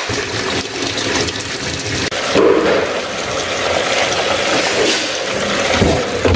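Water rushing into a top-loading washing machine as it fills, with detergent powder being poured into its dispenser drawer.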